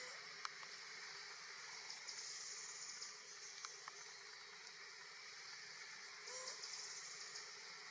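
Faint high-pitched insect buzzing that swells and fades every second or two, with a few light clicks.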